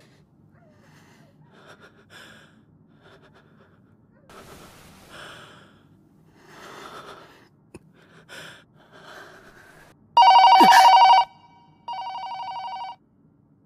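Soft gasps and breaths, then about ten seconds in a hotel room telephone starts ringing: loud electronic rings about a second long, every two seconds, the first the loudest. It is the front desk calling to say the room time is up.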